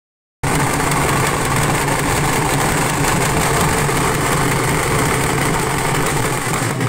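A large group of dhol drums beaten together with sticks, a dense, continuous fast beat that starts abruptly about half a second in and holds at a steady loud level.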